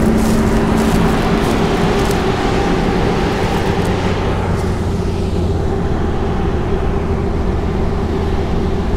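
Combine harvester, a New Holland with a MacDon header, running steadily at close range: a loud, even engine and machinery hum with a couple of held tones and clicks in the first two seconds. The higher sound fades about halfway through, leaving a lower, steadier hum.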